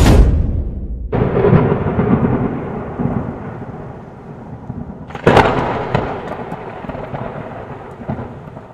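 Intro sound effects: deep booms with long rumbling tails, one at the start, a fresh one about a second in, and a sharp hit about five seconds in, each fading away before the sound cuts off abruptly.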